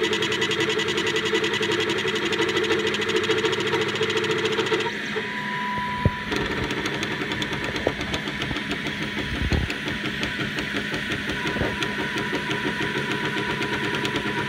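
40 W CO2 laser engraver with a rotary attachment running: a steady machine hum with fast, even ticking from its motors. The motor tones change about five seconds in, and a sharp click comes at about six seconds.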